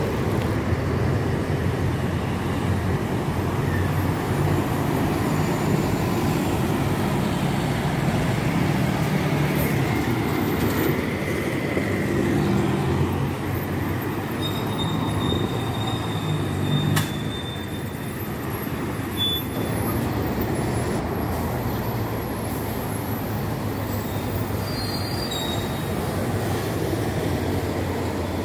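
Diesel city buses running and passing in street traffic, with a steady low engine drone and road noise, and a short high squeal about midway.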